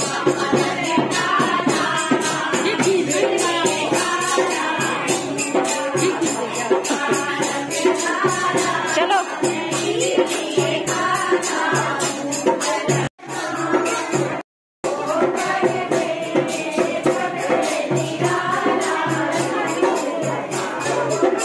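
Group singing of a Hindu devotional song with percussion accompaniment. The sound cuts out twice for a moment about two-thirds of the way through.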